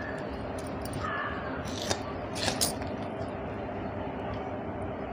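Small knife cutting slices off a peeled raw green mango, with a few crisp cutting clicks about two seconds in and again just after, over steady background noise.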